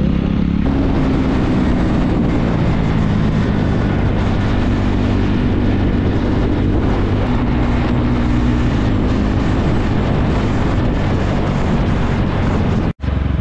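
KTM Duke 390's single-cylinder engine running under way, pulling the bike up to highway speed, with wind rush over the microphone. The sound cuts out for a moment near the end.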